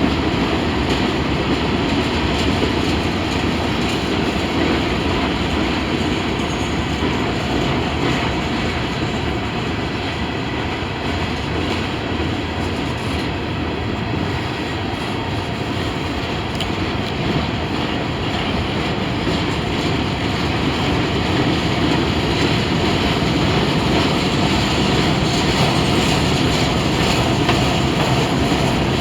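Freight train rolling past, a steady noise of steel wheels on the rails.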